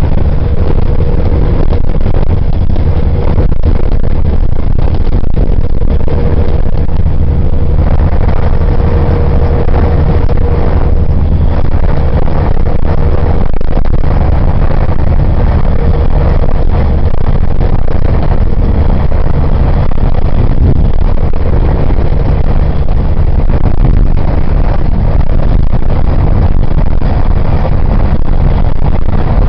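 Steady, loud rumble of a road vehicle in motion, heard from inside: engine and tyre noise heavy in the low end, with a faint steady whine in roughly the first ten seconds.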